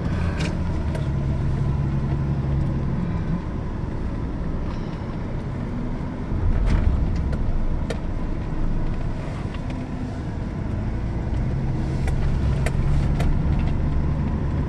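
Car driving slowly, heard from inside the cabin: a steady low engine and road rumble that swells briefly a little before halfway, with a few light clicks.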